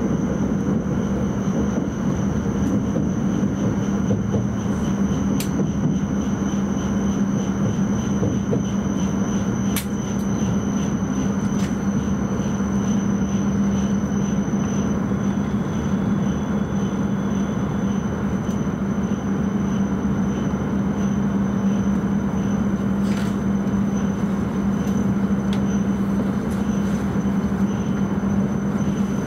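Cabin running noise of an E5 series Shinkansen: a steady rush and rumble with a constant low hum and a thin, steady high whine, with a few faint clicks.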